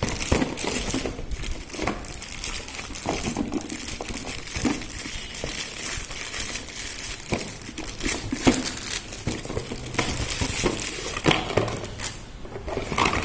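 Plastic packaging crinkling and rustling as a plastic microwave cookware box is unwrapped and handled, with irregular small clicks and knocks of the plastic container.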